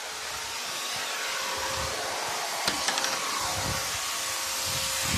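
Pressure washer running, its water jet hissing steadily against a wooden garden table and patio flagstones, with a steady motor hum underneath.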